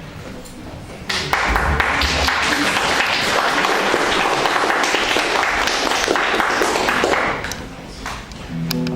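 Audience applauding for about six seconds, starting about a second in and dying away near the end. An acoustic guitar begins to play just as the applause ends.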